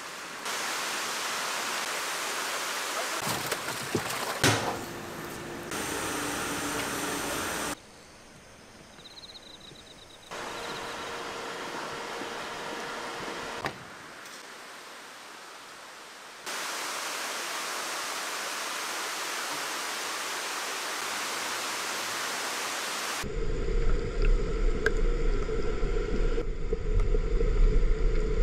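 Running, splashing water in salmon-farm tanks: a steady rush that changes abruptly several times. In the last few seconds it turns louder and deeper, with uneven surges of churning water.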